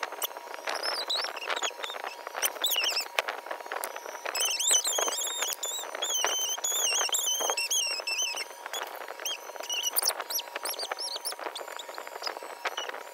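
Cardboard jigsaw puzzle pieces being picked up, shuffled and set down, a run of light clicks and rustles. High, wavering chirps sound over the middle of it.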